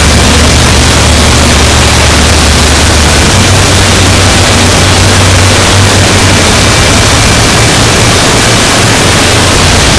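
Harsh noise wall: a loud, unbroken wall of distorted static over a heavy low rumble, with no rhythm or breaks. The low rumble shifts slightly in pitch about three seconds in.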